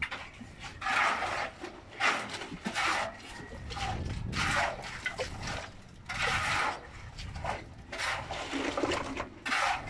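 Wet concrete being scooped and handled in buckets: a run of separate scraping, sloshing bursts about a second or two apart.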